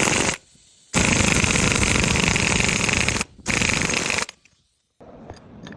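A power tool rattling rapidly in three loud bursts, the longest about two seconds, with short breaks between; it stops a little past four seconds in.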